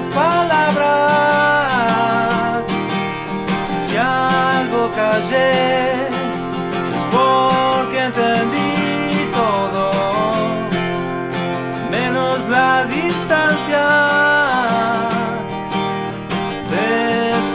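A man singing with an acoustic guitar accompaniment: long held notes with vibrato and sliding pitch over continuous guitar playing.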